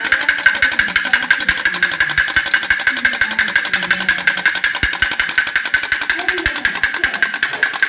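Clockwork mechanism of a wind-up key doll running: a rapid, perfectly even clicking, about a dozen clicks a second, over a steady high tone.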